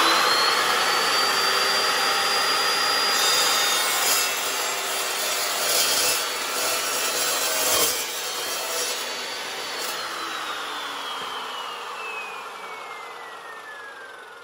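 Evolution R355 metal chop saw running with a high steady whine, its carbide-tipped blade cutting through steel stock for about five seconds from a few seconds in, a rougher, louder grinding. The motor is then switched off and the whine falls away steadily as the blade spins down.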